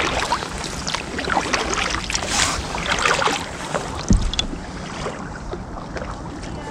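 Kayak paddle strokes dipping into calm water, with repeated splashes and drips. There is a dull knock about four seconds in.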